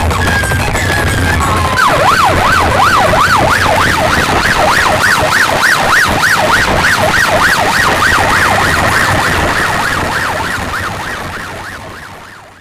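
A fast up-and-down warbling siren sound effect played loud through a DJ sound box's horn loudspeakers. It starts about two seconds in over heavy bass and quickens slightly as it goes. It fades out near the end.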